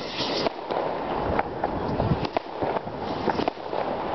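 Fireworks rockets and firecrackers going off: scattered sharp bangs and cracks over a constant noisy background, with a short hiss right at the start.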